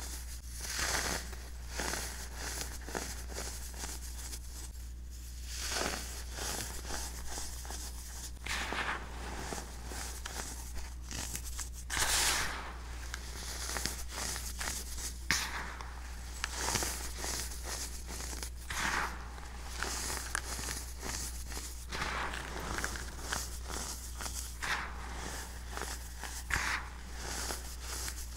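Clumps of baking soda crunching and crackling as they are squeezed and crumbled between the fingers, in repeated squeezes every second or two, over a steady low hum.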